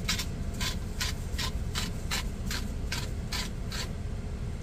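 Hand salt grinder being twisted over a pan, about ten short rasping grinds at roughly two and a half a second, stopping near the end.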